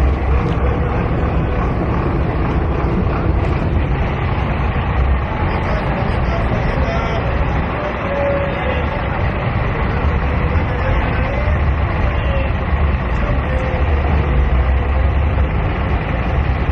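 Steady outdoor background noise with a heavy low rumble and faint voices mixed in.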